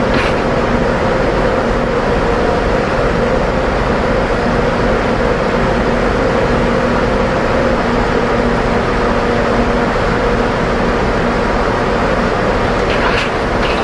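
Steady shipboard machinery hum: a constant rushing noise with two steady low tones running through it, and a few faint brief clicks near the start and near the end.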